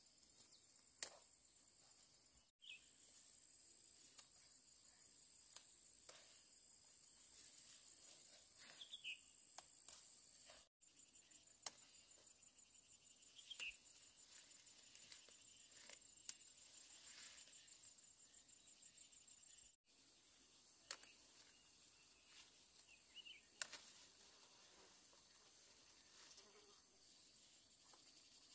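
Faint, steady high-pitched trill of insects, with a stretch of fast, even pulsing in the middle and scattered light clicks.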